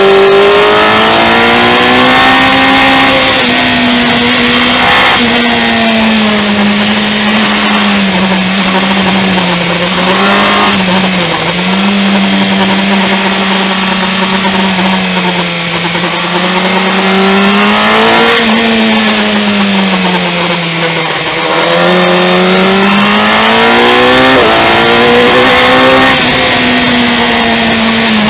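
Motorcycle engine running under way on a winding road, its revs rising and falling over a few seconds at a time through the bends. There are a couple of sudden pitch steps, at gear changes, about a third of the way in and again near the end. A steady rush of wind and road noise runs underneath.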